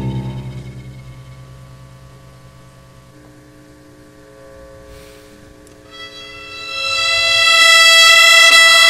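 Contemporary chamber music for electric guitar and string quartet. A loud chord with a pulsing level fades away over the first couple of seconds and quiet held notes follow. About six seconds in, the bowed strings swell into a loud, bright sustained chord.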